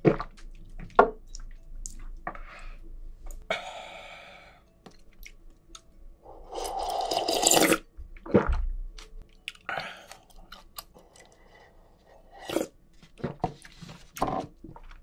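Close-miked eating sounds: wet chewing with sharp lip smacks and clicks. About six and a half seconds in comes a longer noisy slurp, over a second long, as he drinks from an instant-noodle cup.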